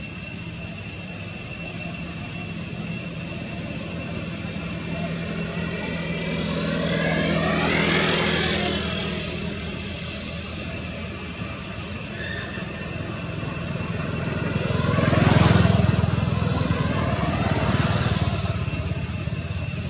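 Motor vehicles passing by, each swelling and fading with a shifting engine pitch: one about eight seconds in, then a louder pass about fifteen seconds in followed closely by another, over a steady low traffic rumble and a thin high whine.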